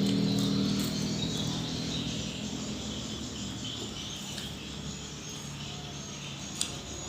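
Crickets chirping in the background while someone eats quietly, with a hum at the start that fades within about a second and one sharp click, like a utensil on a plate, about six and a half seconds in.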